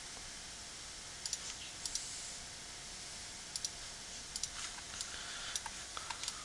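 Computer mouse clicking: scattered sharp clicks, some in quick pairs, over a steady faint hiss.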